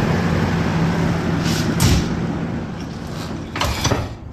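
Steady low hum of the tanker's deck machinery, with two loud clunks of a heavy steel ship's door being handled, about a second and a half in and near the end. After the second clunk the hum falls quieter.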